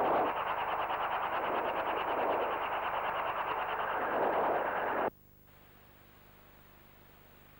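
Robinson R22 helicopter running close by, its rotors giving a loud noise with a fast, even chopping pulse. It cuts off abruptly about five seconds in, leaving only a faint low hum.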